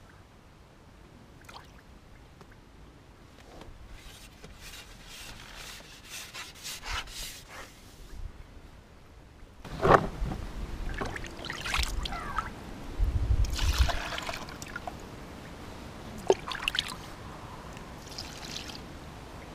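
Hands working among plastic bait tubs and tackle on an angler's side tray: scattered rustles, clicks and scrapes, busier in the second half, with one sharp knock about ten seconds in and a few dull thuds soon after.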